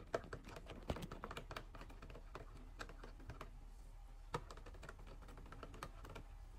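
Metal spoon clicking and scraping against a thin plastic cup while stirring pudding powder into hot water, with rapid, irregular taps.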